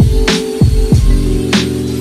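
Background electronic music with a steady beat: deep bass, kick drums that drop in pitch, and a sharp snare-like hit about once a second.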